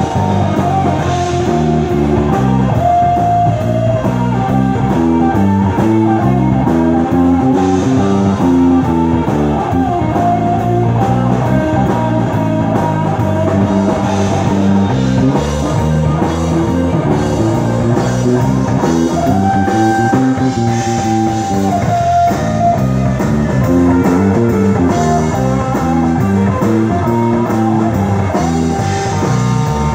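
A live band playing an instrumental passage: electric guitar lead over bass guitar and a drum kit with steady cymbal ticks. The guitar holds a long note about two-thirds of the way through.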